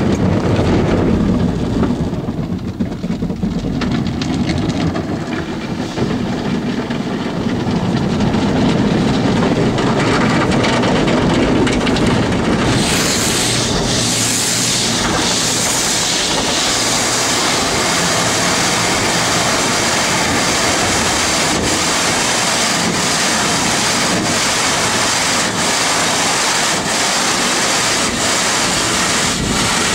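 Automatic car wash heard from inside the car's cabin: foam and water splashing onto the windshield and body over a low rumble. About thirteen seconds in, a loud steady hiss of spray takes over, with faint regular pulses a little over once a second.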